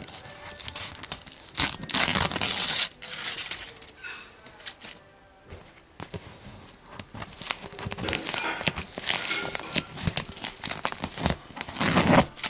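Layers of aluminum foil wrapped over duct board crinkling and tearing as they are handled and pulled back by hand, on and off, loudest about two seconds in and again near the end.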